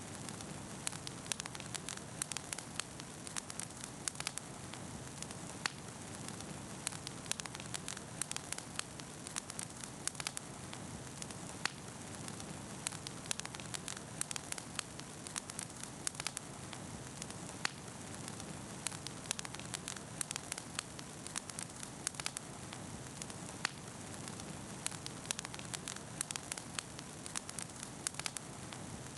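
Bonfire crackling: a steady hiss with frequent, irregular sharp pops and snaps throughout.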